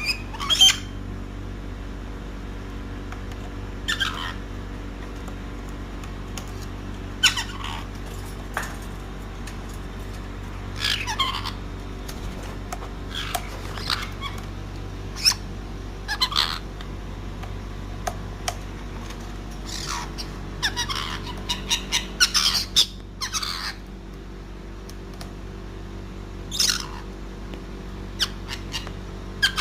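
Caique parrot giving short, sharp squawks, one at a time every few seconds, with a quick run of several calls about two-thirds of the way in.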